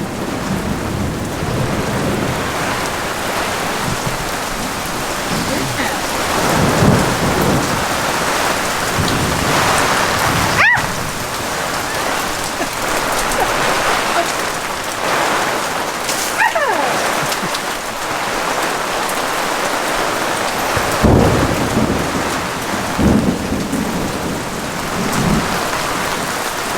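Heavy thunderstorm rain pouring steadily, with thunder rumbling several times.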